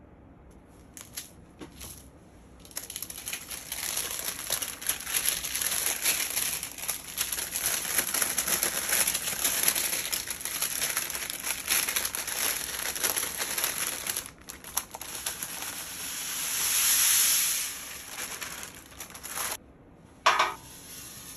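Parchment baking paper crinkling as it is lifted and folded to tip roasted cocoa nibs off a metal baking tray, the nibs rattling as they slide into a glass bowl, louder for a couple of seconds a little before the end. A single short knock near the end, from the tray being touched.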